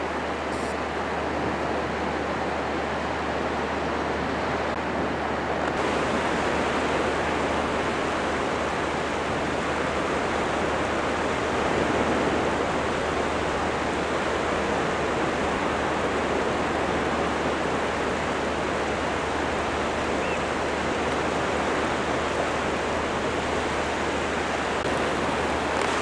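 Gentle surf washing up a flat sandy beach: a steady, unbroken rush of water.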